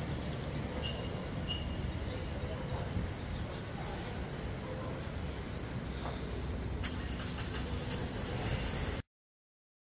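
Outdoor street ambience: a steady low rumble of road traffic, with a few faint high chirps. The sound cuts off about nine seconds in.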